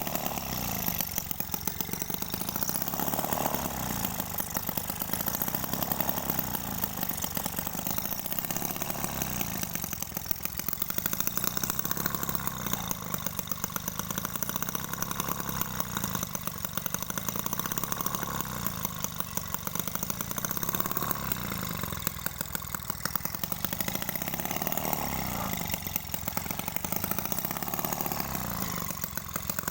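Small homemade two-stroke engine built from a refrigerator compressor, running with a fast, buzzy firing. Its speed swells and sags every few seconds.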